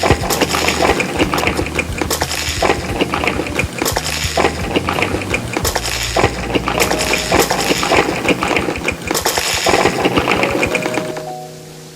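Dense, rapid clicking and clinking from food and tableware being handled close to the microphone, over background music. The clicking stops about eleven seconds in, leaving only the music.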